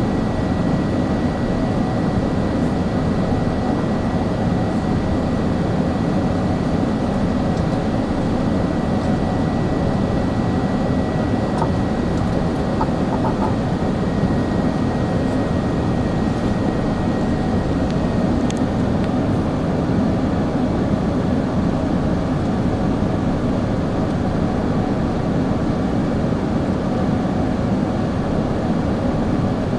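Steady cabin noise inside an Airbus A380 airliner in flight: the even low rumble of its jet engines and the rushing air. A faint thin high tone runs alongside and fades out about two-thirds of the way through.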